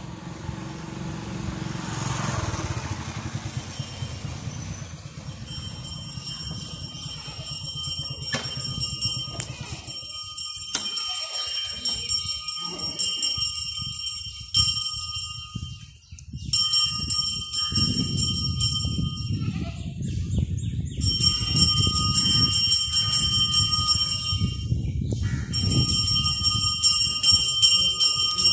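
Temple bell ringing continuously. The ringing starts a few seconds in, breaks off briefly three times and gets louder toward the end, over a low rumble.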